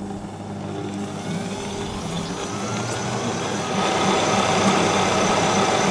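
Kenwood kMix stand mixer running, its wire whisk beating cream cheese and sugar. The motor whine rises in pitch over the first couple of seconds as it speeds up, and the machine gets louder about four seconds in; it is noisy.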